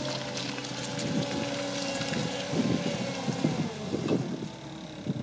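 Cat skid-steer loader's diesel engine running, its pitch dropping somewhat past halfway, with a cluster of short knocks and clanks over the middle of it.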